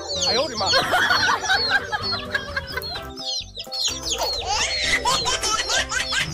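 Many young chicks peeping, their short, high, falling calls coming several a second and overlapping, over background music with steady low notes.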